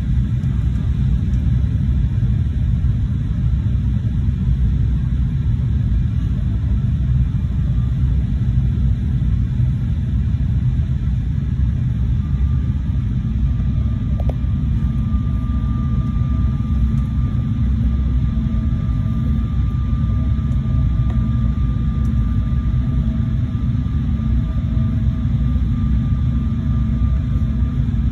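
Steady low rumble of a jet airliner's cabin noise during descent: engines and airflow heard from a window seat. A faint steady high whine joins about halfway through.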